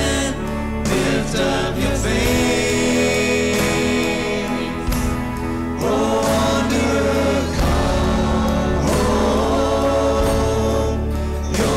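Church music: sung voices with accompaniment, holding long notes.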